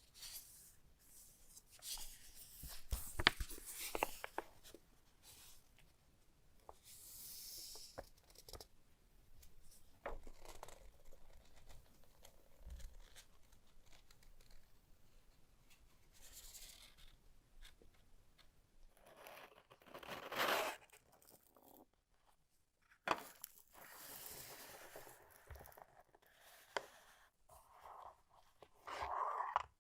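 Packaging being handled during an unboxing: intermittent rustling, crinkling and tearing of wrapping, with scattered sharp clicks and taps.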